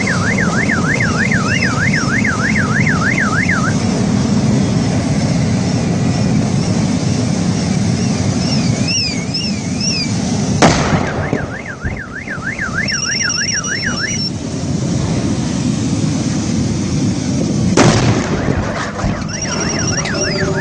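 Car alarm cycling through its patterns (a fast up-and-down warble, chirps, then steady beeps) over a constant low rumble. It is cut by two sharp explosion bangs from the burning vehicle wreck, about 11 and 18 seconds in.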